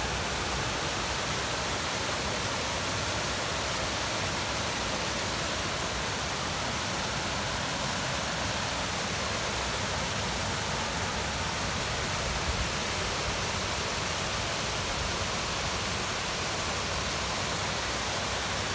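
Small creek waterfall: water pouring over a rock ledge and rushing over the stream bed in a steady, even rush.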